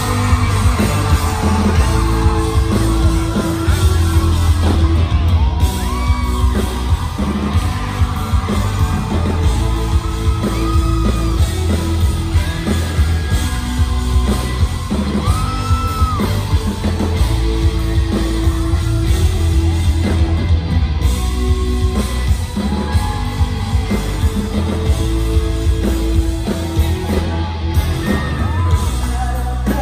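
Live electronic rock band playing loud over a heavy, steady bass and drums, with singing and fans in the crowd yelling and whooping over it. It echoes as in a large hall and is heard from among the audience.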